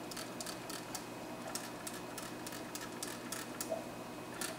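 Trigger spray bottle pump squeezed over and over, making a quick, irregular run of light clicks, several a second.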